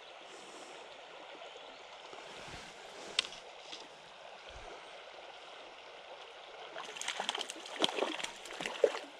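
Shallow stream running steadily over stones. From about seven seconds in comes a run of irregular splashes as a hooked brown trout thrashes at the surface. There is a single sharp click about three seconds in.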